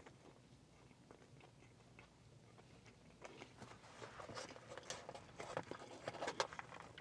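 A person biting and chewing fast food close to the microphone: faint at first, then short crunches and crackles come thick from about three seconds in.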